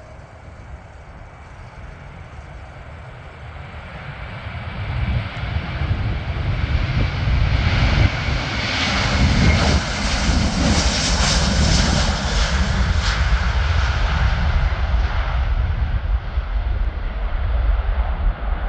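Jet engines of a KLM Airbus A330 at takeoff thrust during its takeoff roll: the noise builds over the first several seconds, is loudest with a crackling hiss as the aircraft passes, and then stays as a heavy low rumble as it lifts off and climbs away.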